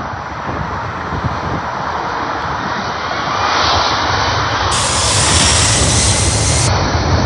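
Boeing 757's twin jet engines at takeoff thrust during the takeoff roll: a steady rushing noise with a deep rumble, growing louder about halfway through as the jet passes, with a faint rising whine.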